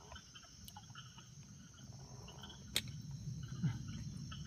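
Night insect chorus of crickets, a steady high-pitched trilling, with one sharp click a little under three seconds in.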